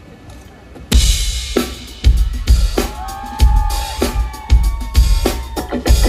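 A live band starts the song about a second in: a drum kit with heavy kick-drum beats and cymbals, and a held melodic line coming in over it partway through.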